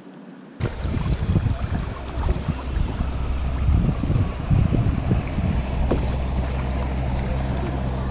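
Wind buffeting an action camera's microphone on a kayak on the water. It starts suddenly under a second in as a gusty low rumble and settles into a steadier rumble after about five seconds.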